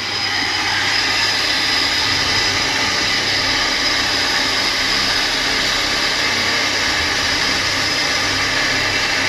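Leaking electric water pump running steadily: a constant mechanical hum and hiss with a thin high whine, its leak spraying water.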